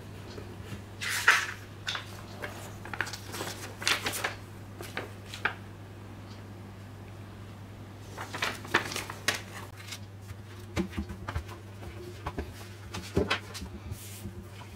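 Paper leaflets and card packaging handled with gloved hands: irregular rustles and light taps of paper and card, loudest about a second in, over a steady low hum.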